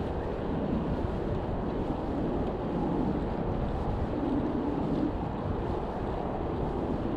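Steady, low wind rumble on a chest-mounted GoPro's microphone from riding a road bike, with road traffic noise mixed in that swells a few times.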